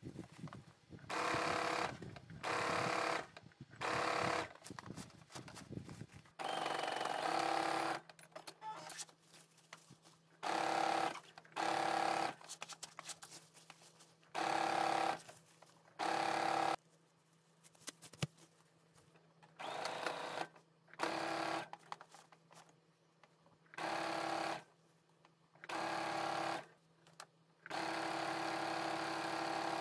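Brother Innovis A150 computerized sewing machine stitching in about a dozen short runs of a second or so each, with brief pauses between them.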